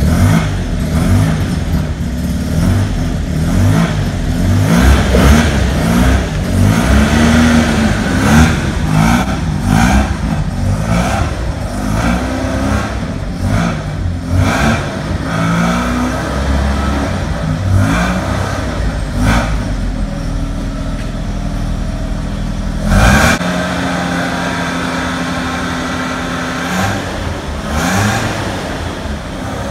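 Mazda RX-2's 12A rotary engine running and being revved, its pitch repeatedly rising and falling. About three-quarters through there is a sudden bang, after which the engine note holds steadier.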